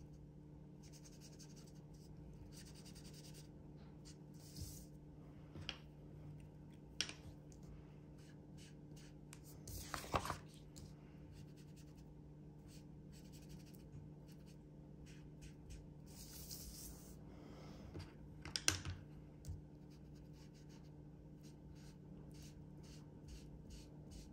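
Soft scattered dabbing and rubbing of an ink-blending sponge dabber on paper, with a few light taps, the strongest about ten seconds in and again near eighteen seconds, over a low steady hum.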